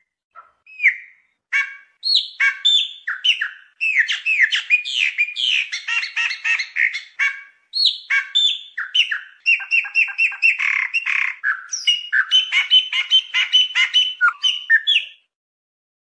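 Chopi blackbird (pássaro preto) singing. A few single whistled notes come first, then from about two seconds in a long, fast, varied song of clear whistles mixed with rapid clicking notes, which stops shortly before the end.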